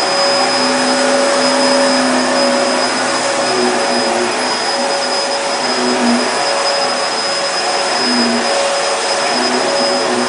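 Vacuum cleaner running steadily and loudly: a rush of air with a steady high whine above it.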